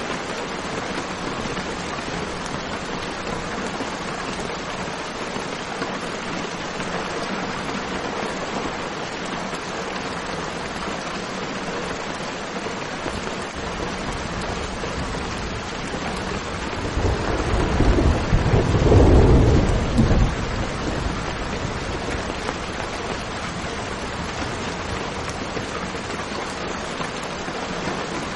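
Steady rain hiss with a roll of thunder swelling about two-thirds of the way through, lasting around three seconds before fading back into the rain.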